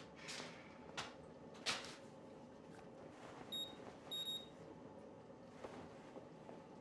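Two short electronic beeps from a washing machine's control panel, a little under a second apart, as its settings are keyed in. A few soft knocks come before them.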